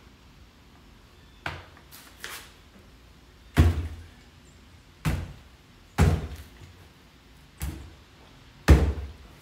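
A series of about seven dull thumps at irregular intervals, the loudest about three and a half seconds in and near the end.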